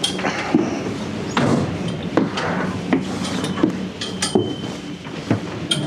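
Footsteps climbing the stairs of a double-decker bus: an uneven run of knocks and thuds on the steps and fittings, over the steady hum of the bus's idling engine. A short high beep sounds about four seconds in.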